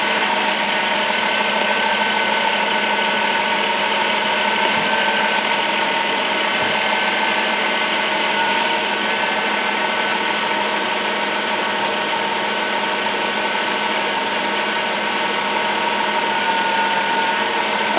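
2007 Dodge Grand Caravan engine idling steadily under the hood, with a few constant whining tones in the engine noise. The freshly replaced alternator is charging, at about 14.2 volts.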